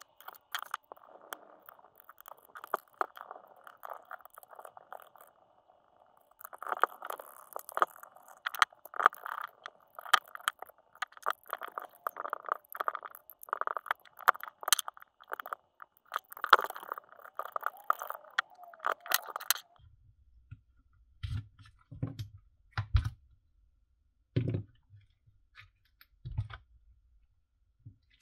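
Hand screwdriver backing long screws out of the plastic clamshell housing of a Milwaukee M18 FUEL hammer drill: a steady scraping with many small clicks. About two-thirds of the way in this gives way to a few separate dull knocks as the housing is handled on a rubber mat.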